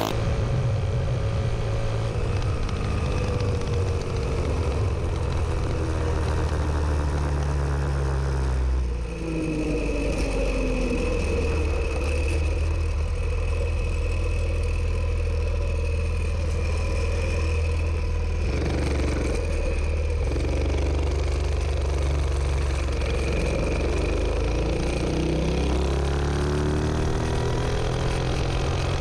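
Dirt Bug minibike's Predator 212 Hemi single-cylinder engine, with an exhaust pipe and no governor, running hard at road speed, heard from on board. Its note drops about nine seconds in, holds steady, then climbs again near the end.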